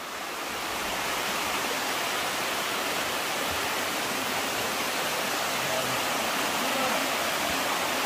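Steady rush of falling water from a mountain waterfall, fading in over the first second.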